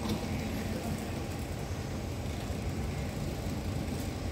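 Steady low rumble of a standing train's diesel engine idling, with a faint click right at the start and another about four seconds in.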